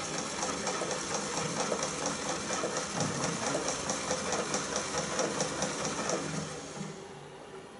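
35mm motion picture projector mechanism turned slowly by hand, clattering in an even rhythm of several beats a second. It slows and fades out about seven seconds in as the cranking stops.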